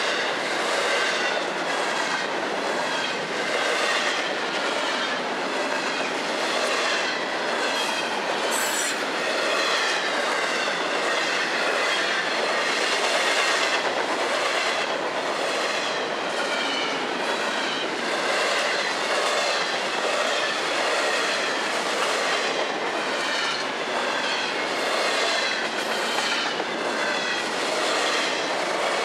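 Freight cars of a long Florida East Coast Railway train rolling past, their steel wheels clacking over the rail joints in a steady repeating rhythm under a continuous rumble, with a high wheel squeal over it.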